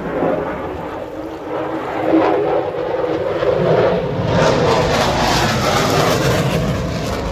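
Engine noise of an aircraft flying past, a steady rumble that grows louder and brighter about four seconds in.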